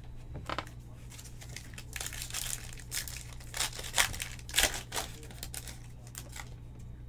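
Foil wrapper of a trading-card pack crinkling and tearing as it is pulled open by hand, a run of sharp crackles, loudest about four seconds in.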